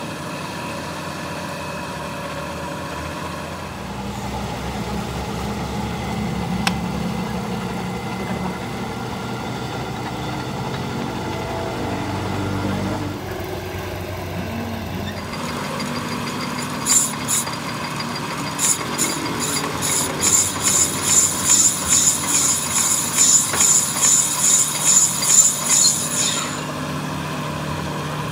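Workshop machinery running with a steady low hum. About two-thirds of the way through, a run of sharp, high-pitched ticks sets in, about two a second, and stops a couple of seconds before the end.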